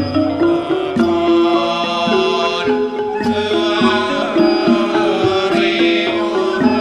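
Thai royal barge chant music (kap he ruea): a drawn-out melody of held notes stepping up and down, over regular drum strokes.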